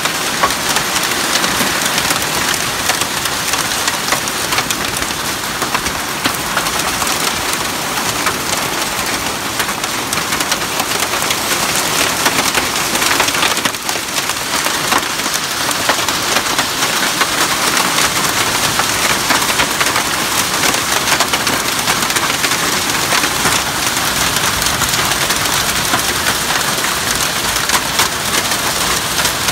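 Heavy rain pouring down steadily, pattering on the corrugated roof overhead and running off its edge in streams.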